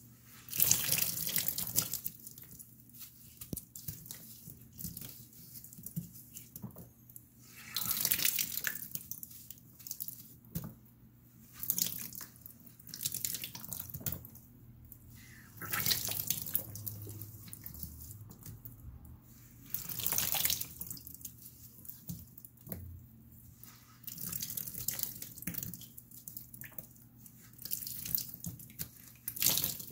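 Glitter-coated block of floral foam being crushed by hand: repeated crunching, squishing squeezes, one every couple of seconds, as the foam breaks apart.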